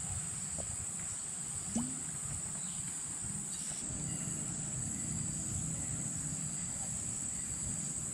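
Steady high-pitched chorus of insects such as crickets or cicadas, over a low background murmur. A brief soft knock about two seconds in.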